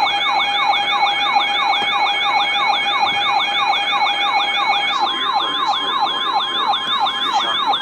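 Electronic yelp siren alert sound, its pitch sweeping down about three to four times a second over steady alert tones. About five seconds in, the lower steady tone gives way to a single slightly higher tone.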